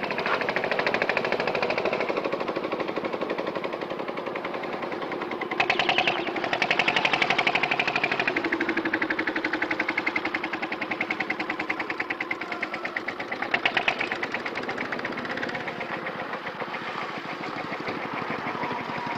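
An engine-driven machine running with a fast, even knocking rhythm, louder for a couple of seconds around six seconds in.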